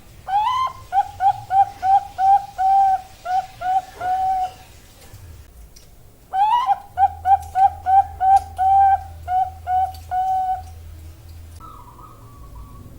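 Female Bangkok-type zebra dove (perkutut) singing two cooing phrases about two seconds apart. Each starts with a rising note, then runs into about ten quick, short, evenly spaced coos.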